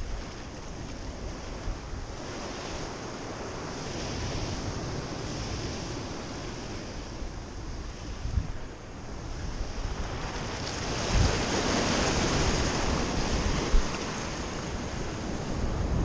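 Ocean surf washing and breaking against a rocky shore, with wind buffeting the microphone. The surf grows louder about ten seconds in.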